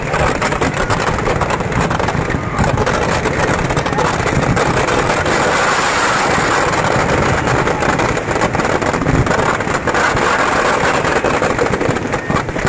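Firecrackers packed inside burning Dussehra effigies going off in a loud, dense, continuous crackle with scattered bangs.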